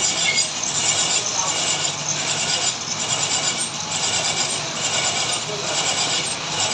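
Metal lathe running in a workshop: a steady mechanical noise with a constant hiss and a low hum.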